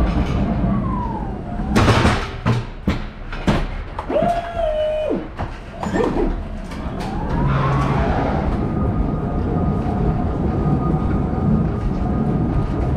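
Electric pallet truck at work. Its drive motor whine falls as it slows at the pallet, and a few sharp knocks follow as the forks go in under it. Then the lift pump whines steadily for about a second, and the drive motor whine rises and holds as the loaded truck drives off, over a low rumble of its wheels on the trailer floor.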